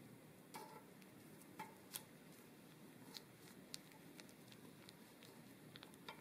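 Faint scattered scrapes and taps of a metal offset spatula sliding under raw dough cutouts on parchment paper over a baking sheet, about half a dozen light clicks in all.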